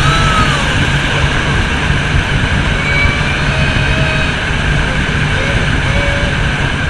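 Hurricane simulator booth's fans blasting high-speed wind over the microphone: a loud, steady rush of wind noise. Faint voices call out over it.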